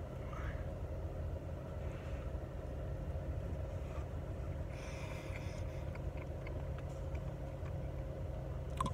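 Steady low rumble of a car with its engine running, heard from inside the cabin.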